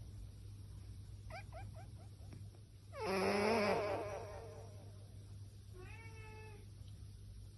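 Sleeping cat vocalising in its sleep through a handheld karaoke microphone: a quick run of six or seven little chirps, then a louder wavering meow about three seconds in and a shorter one near the end, over a steady low hum.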